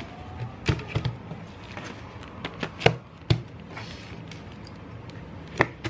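A paperback book handled on a wooden tabletop: several sharp taps and knocks as fingers tap its cover and it is moved and set down on the wood.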